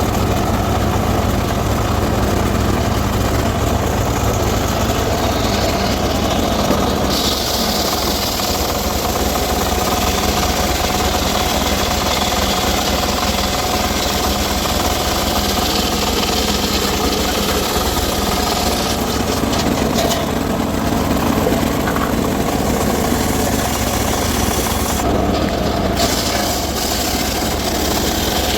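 Engine-driven circular saw running steadily while cutting teak timber: a constant engine drone under the saw's hiss, which brightens about a quarter of the way in and shifts a few more times.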